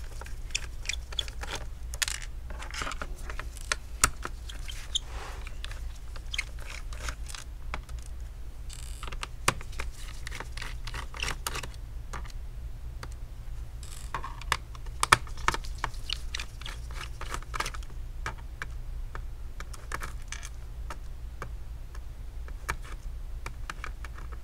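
Phillips screwdriver backing out the screws of an Acer Aspire V3-575 laptop's plastic bottom cover: irregular small clicks and ticks of the bit in the screw heads and of screws and hands on the case, over a steady low hum.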